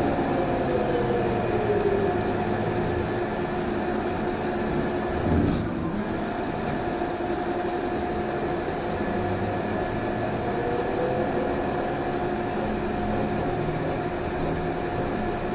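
Inside a moving trolleybus: the electric drive's steady whine and hum over rolling noise, with a tone that glides in pitch near the start and again about ten seconds in. A brief knock comes about five seconds in.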